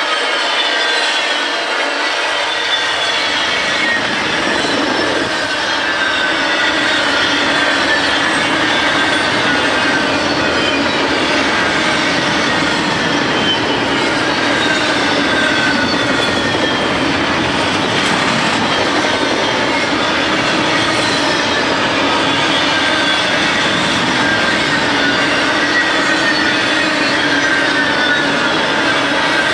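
Double-stack container train's steel wheels rolling past at speed: a steady rolling noise with high-pitched wheel squeal that comes in repeated falling tones as the trucks go by.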